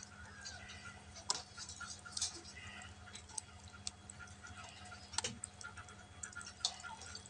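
Faint wet clicks and squelches, irregular, from hands working a raw whole chicken over a basin of water, pulling out fat and innards.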